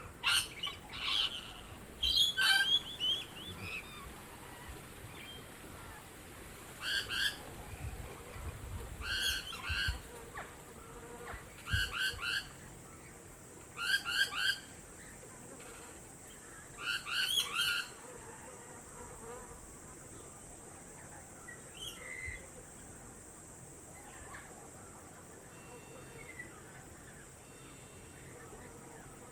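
Birds calling outdoors: short, bright multi-note calls repeating every two to three seconds, then only faint scattered chirps in the second half, over a steady high hiss.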